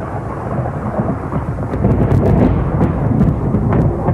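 Thunderstorm: a long low rumble of thunder over rain, swelling about two seconds in, with a few sharp crackles.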